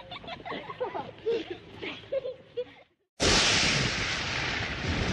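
High-pitched cartoon voices giggling, then a short gap. After that, a cartoon lightning-strike sound effect starts suddenly and loud, and holds as a steady, hissing rumble.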